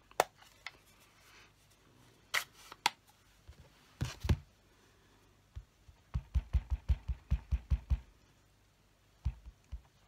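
Plastic clicks and a knock as an ink pad case is handled and opened. Then a clear acrylic stamp block is tapped quickly on the ink pad about ten times, making dull knocks, with one more knock near the end.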